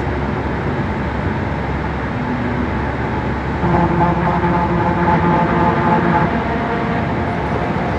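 Steady road and engine noise of a car driving through a road tunnel, heard from inside the cabin. A steady hum rises over it for about two and a half seconds in the middle.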